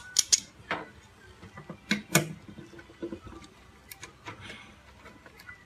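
Clicks, knocks and short scrapes of an oil-water separator (air filter-regulator) being handled and fitted against the machine's sheet-metal panel: a quick cluster of taps at the start, the loudest pair of knocks about two seconds in, then lighter scattered clicks.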